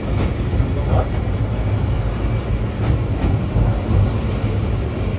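Great Orme Tramway's cable-hauled tramcar running along its track, heard from on board: a steady low rumble of wheels on rails.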